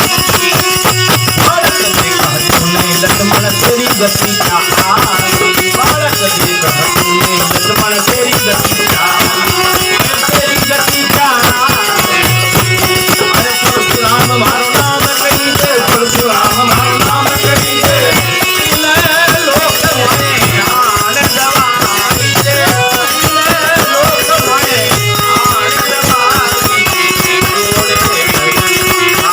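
Live Rajasthani devotional bhajan music: a melody line with hand percussion, with a dense, steady shaking rattle such as a tambourine or maracas keeping the beat.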